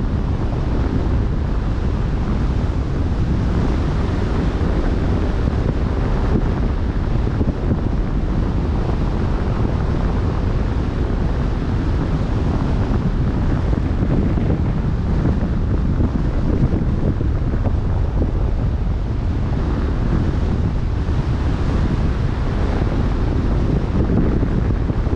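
Wind buffeting the microphone over the wash of open-sea waves: a steady, low-heavy rush with no breaks.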